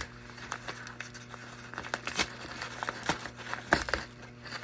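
A package being opened by hand: packaging crinkling and tearing in irregular rustles and sharp snaps.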